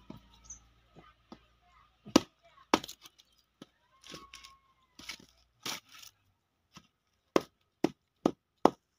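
A metal hand tool chopping and cracking dried cow-dung cakes into small pieces: a few scattered sharp strikes, then a steady run of about two strikes a second near the end.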